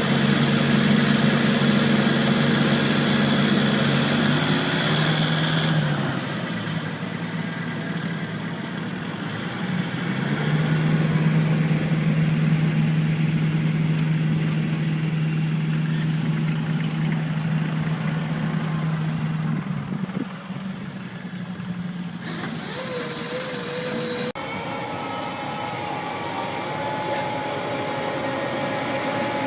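Machinery engines running with a steady hum. The sound changes abruptly several times as one machine gives way to another.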